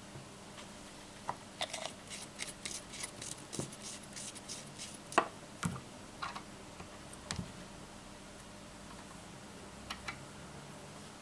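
Small sharp clicks and ticks from fly-tying tools and fingers handling a jig in a tying vise: a quick run of them over the first few seconds, one louder click about five seconds in, a few more after it and two near the end.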